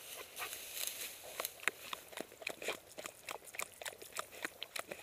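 Tall dry grass crackling and rustling underfoot: a quick, irregular run of short crunches as feet push through the stalks.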